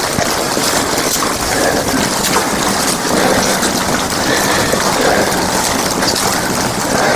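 Wet snow and sleet pattering steadily on an umbrella held close over the camera, a dense hiss full of small ticks.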